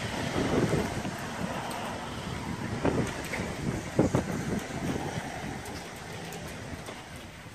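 Wind buffeting the microphone in a steady low rumble, with a couple of thuds about three and four seconds in.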